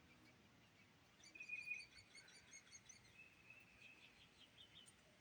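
Faint bird song: a quick run of short high chirps starting about a second in, with a thin held note under them, then softer chirping near the end.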